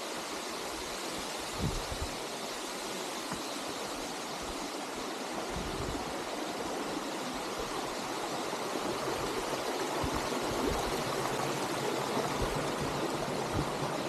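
Steady rush of waterfall and stream water, growing a little louder in the second half, with a few brief low thumps.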